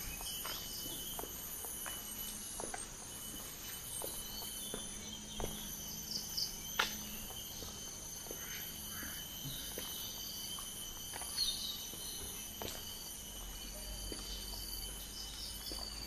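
Footsteps on a park path at a steady walking pace, about one step every two-thirds of a second. Behind them is a steady high-pitched chorus of crickets or cicadas, with a few brief chirps.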